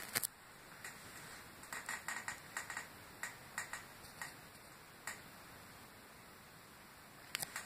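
Light, irregular clicks and ticks from fingers handling a cane bassoon reed, in a cluster in the first half, then mostly quiet with a few more clicks near the end.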